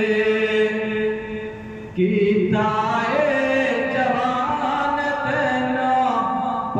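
A man's solo voice chanting a devotional Islamic piece unaccompanied, holding long, wavering notes. His voice fades away about a second in and comes back strongly at two seconds.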